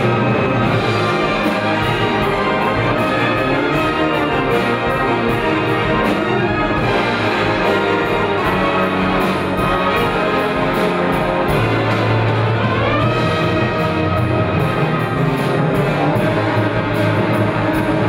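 A full brass band playing, with cornets, euphoniums and basses sustaining a dense, continuous texture. A rising phrase comes in the upper parts about two-thirds of the way through.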